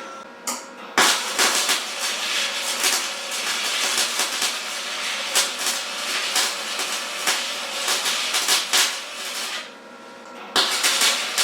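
Electric welding arc crackling in a continuous run of about eight and a half seconds, starting about a second in; it stops for about a second, then strikes up again near the end.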